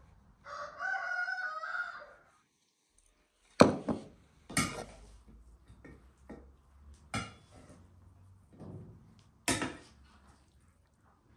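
A rooster crows once, a wavering call about two seconds long near the start. After a short pause come a few sharp knocks and clatters of spoons against an enamel bowl as rice stuffing is mixed; the first knock is the loudest.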